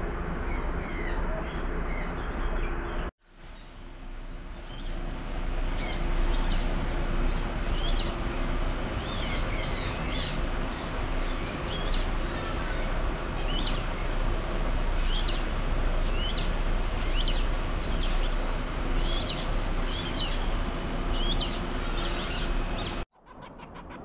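Aviary birds chirping: many short, high calls repeating every half second or so over a steady background hiss. The sound cuts out briefly about three seconds in and again near the end.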